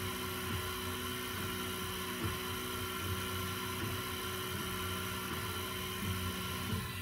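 Prusa i3-style 3D printer printing: a steady whir and hum from its fans and stepper motors, with a brief change in the motor sound about every second as the print head reverses direction.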